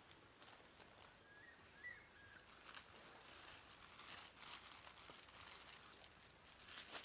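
Quiet outdoor ambience with a few short, faint bird chirps about two seconds in. After that come soft rustling and crunching clicks that grow busier toward the end.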